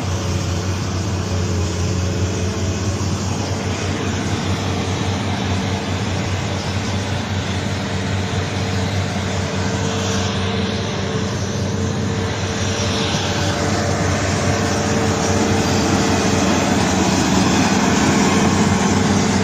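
A heavy machine's engine running steadily with a low, even drone, growing a little louder near the end.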